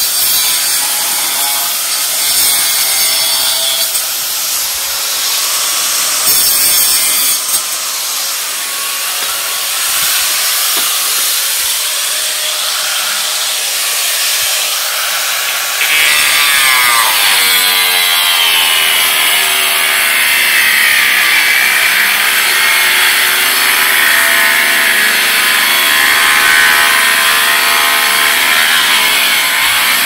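Corded angle grinder running and cutting into a wooden board. From about halfway it gets louder as it bites deeper, its pitch sagging slowly under the load.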